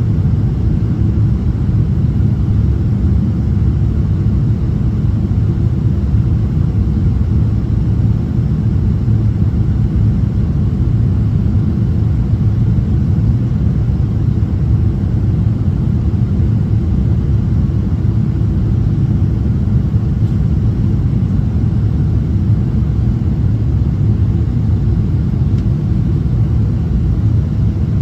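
Steady cabin rumble of a Boeing 777-300ER on final approach with flaps extended: engine and airflow noise heard inside the cabin at a window seat.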